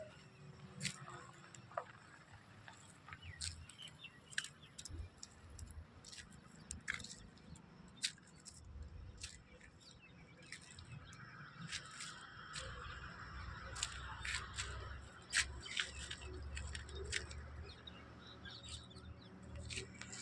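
Faint outdoor ambience: scattered short chirps and clicks, with a low rumble and a soft hiss swelling through the middle and fading near the end.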